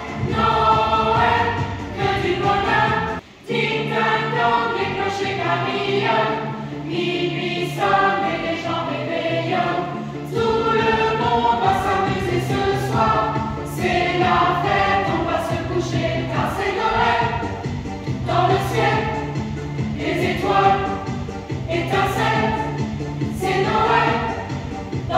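Children's choir, joined by a few adult voices, singing a Christmas song, with a momentary break in the sound about three seconds in.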